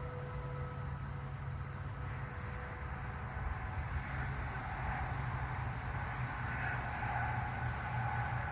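Steady background noise with a constant high-pitched cricket-like tone and a low hum beneath it, unchanging throughout.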